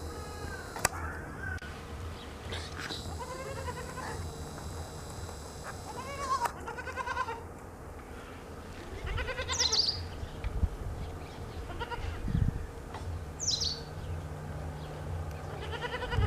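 Goats bleating several times, separate wavering calls a few seconds apart, with a couple of short high calls among them.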